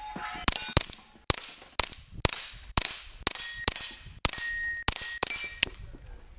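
Suppressed KelTec Sub2000 Gen 2 carbine firing a rapid string of about a dozen shots, roughly two a second, most followed by the short ring of a steel target plate being hit. The string stops near the end.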